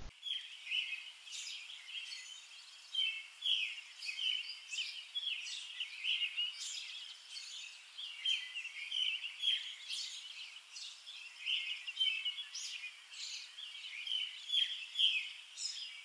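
Several small songbirds chirping and trilling in a busy chorus, with short high chirps overlapping one another.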